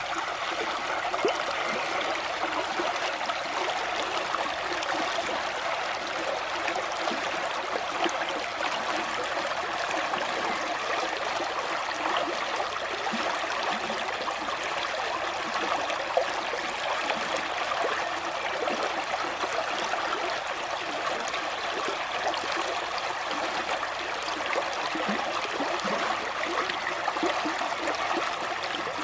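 Shallow river stream flowing steadily, with a constant rushing and small gurgles and trickles over stones.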